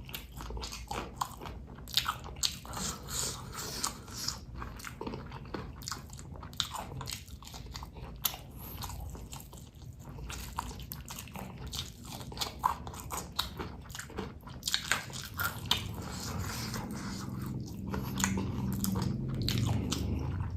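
Close-miked chewing and biting: a person eating cabai gendot chilies in spicy sauce with rice, with irregular crunching and wet clicks of the mouth.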